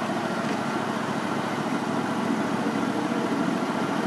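Onboard engine of a 7¼-inch gauge model SD40-2 diesel locomotive idling steadily while the locomotive stands.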